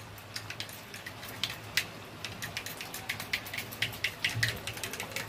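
A spoon clicking against a small steel bowl in quick, irregular taps as curd is beaten smooth.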